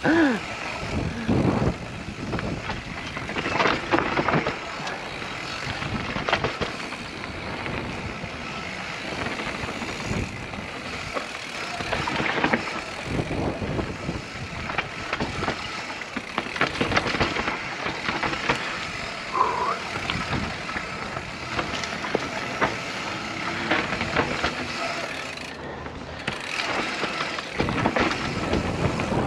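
Mountain bike riding down a dirt forest trail: tyres rolling over dirt and roots, and the bike rattling with many small knocks over the bumps.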